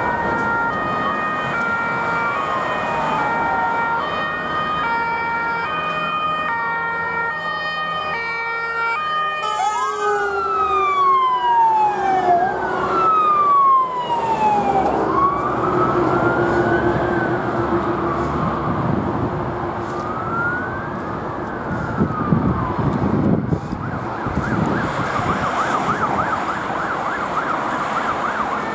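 Electronic sirens of several fire engines on an emergency run sounding at once: a stepped hi-lo two-tone overlapping slow rising-and-falling wails, with a flurry of quick sweeps about ten seconds in. The sirens switch to a fast warble near the end, over passing road traffic.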